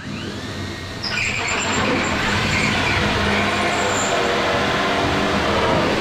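Cordless drill with a hole cutter spinning up, then from about a second in running steadily as the cutter bores through plasterboard, a continuous grinding whir.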